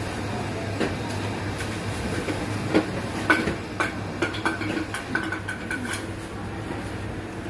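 Steady machine hum with a run of sharp clinks and knocks, some ringing briefly, between about three and six seconds in.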